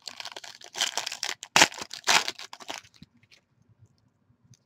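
Foil wrapper of a Panini Prizm basketball card pack being torn open and crinkled. It crackles for about three seconds, loudest in the middle, then stops.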